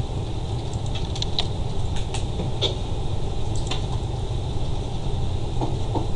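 Steady low rumbling noise on a Skype call's audio line, with scattered faint clicks over it. It is noise that drops once the caller reconnects.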